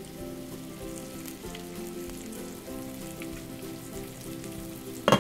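Coated tilapia pieces shallow-frying in hot oil in a nonstick pan: a steady sizzle under background music. A sharp knock comes right at the end.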